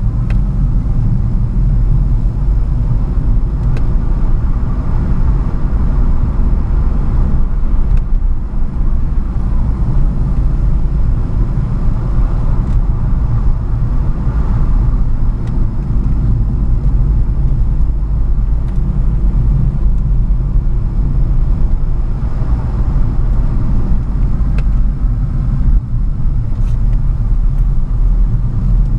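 Car cabin noise while driving: a steady, loud low rumble of engine and tyres heard from inside the car, with a few faint ticks.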